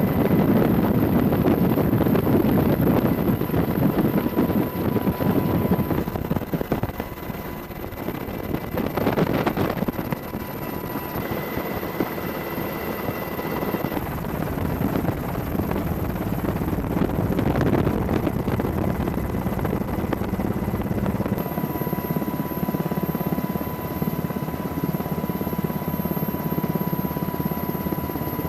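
Helicopter rotor and engine noise, a steady rumbling chop with a faint steady whine over it.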